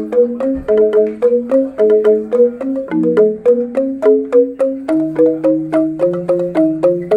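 Two Balinese rindik bamboo xylophones played together with padded mallets: a quick, steady stream of short hollow notes in interlocking lines, with a lower line of notes joining about five seconds in.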